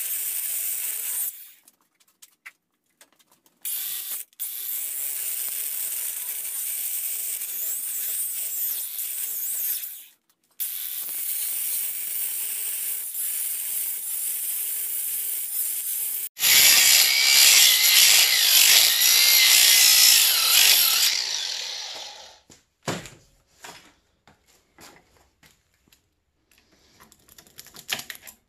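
Angle grinder with a cutoff wheel cutting through the copper windings of a small transformer clamped in a vise. It starts and stops several times, and is loudest with a wavering whine in the last cut before winding down. Scattered clicks and scrapes of metal follow near the end.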